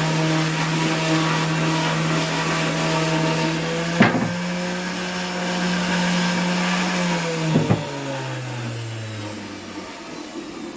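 Electric sander running steadily while sanding wood, with two sharp knocks partway through, then switched off and winding down, its hum dropping in pitch and fading near the end.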